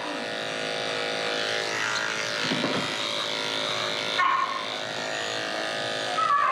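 Electric dog-grooming clippers running steadily as they shave a terrier mix's coat down short. Two brief higher-pitched sounds come through, about four seconds in and again near the end.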